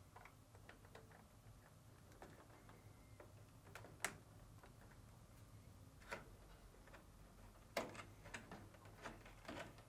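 Faint clicks and light plastic taps from wiring connectors and harness wires being pushed into place on a dryer's control panel. There is a sharper click about four seconds in, another about six seconds in, and a run of small clicks near the end.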